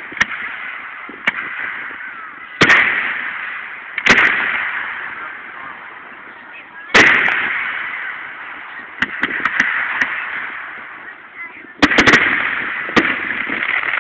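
Aerial fireworks shells bursting: four loud booms, each trailing off in a long rolling echo over a few seconds, with smaller sharp pops in between. Heard through a cell phone's microphone, which muffles the top end.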